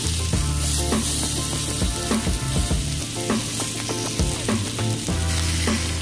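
Salmon fillets and eggplant slices sizzling steadily in a hot ridged grill pan, with a wooden spatula scraping and turning the fish.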